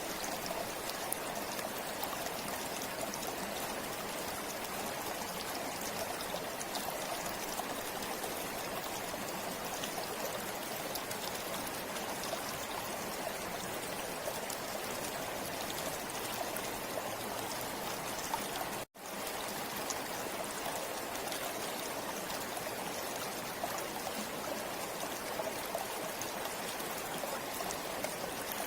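River water flowing steadily over stones, a continuous rushing with small splashes and trickles through it. The sound cuts out completely for a split second about two-thirds of the way through, then carries on unchanged.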